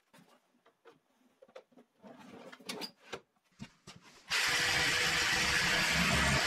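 A few seconds of light handling clicks and knocks, then about four seconds in a jigsaw with dust extraction starts suddenly and runs steadily, cutting along a guide rail through an OSB panel.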